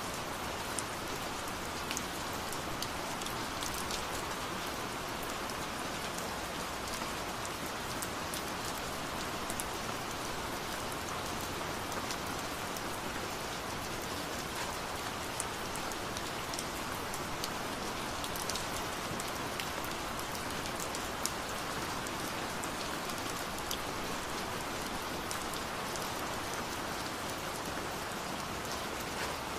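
Steady rain falling on a surface, a continuous even hiss with many scattered sharp drop ticks.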